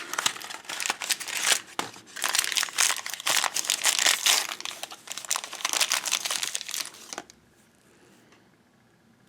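Blind-bag toy packaging being handled and crinkled in quick, irregular rustles, stopping abruptly about seven seconds in.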